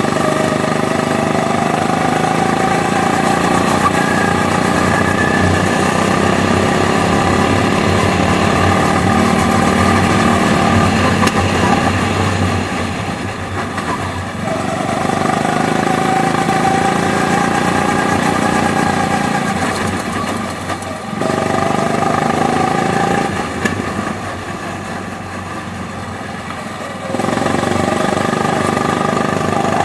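Go-kart engine heard from the driver's seat, running hard through a lap, its pitch rising and falling with speed. It eases off twice, briefly about halfway through and for several seconds later on, then picks up again near the end.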